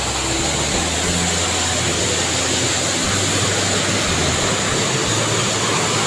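Steady rush of a waterfall: an even hiss with a low rumble that comes and goes underneath.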